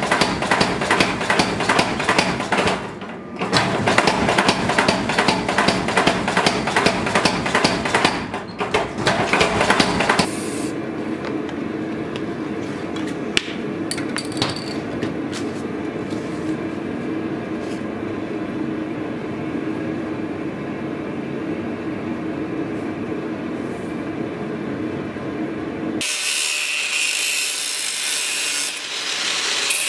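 A power hammer beats a red-hot steel bar with rapid, even blows, several a second. About a third of the way in it stops, and an angle grinder's cut-off disc runs steadily as it cuts sheet steel. The grinder turns harsher and higher near the end.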